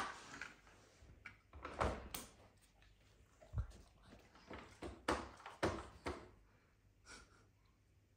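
Scattered knocks and taps: one sharp knock at the start, then faint short taps and clicks every second or so.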